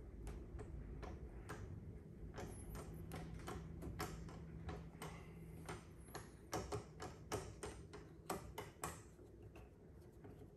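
Light, irregular metallic clicks and ticks of hand-tool work at an ATV's gear shifter as a shift knob is fitted, coming thickest about two thirds of the way in.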